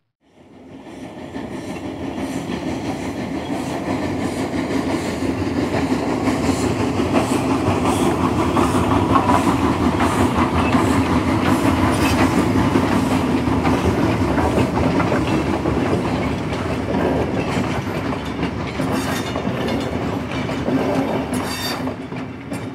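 A train rolling on rails: a steady rumble with wheel clickety-clack, swelling up over the first couple of seconds, loudest around the middle, and easing off near the end.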